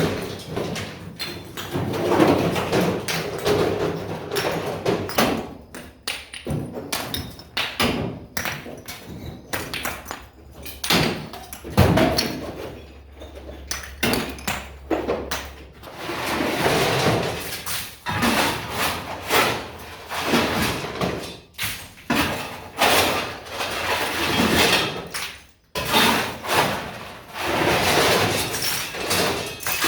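Half bricks being unloaded from a pickup truck bed, clattering and knocking against each other and the pile in quick, irregular impacts.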